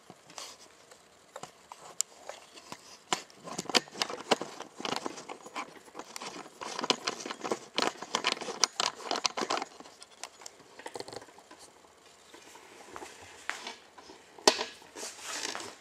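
Handling noise of a video camera being carried and mounted on a tripod: a run of irregular clicks, knocks and rubbing, with one sharp click near the end.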